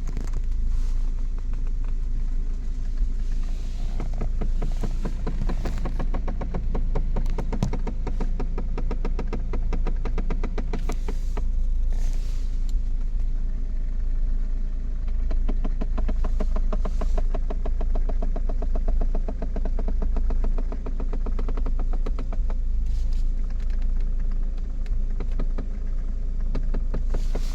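Rapid, even clicking from inside the dashboard of a Saab 9-5, over the low steady hum of the car idling. The clicking is the fault sound that goes with the cabin fan not working.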